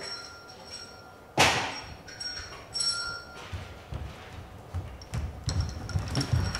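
A single sharp knock about a second and a half in, ringing briefly as it dies away. Toward the end come low thuds of footsteps on the stage floor, growing heavier.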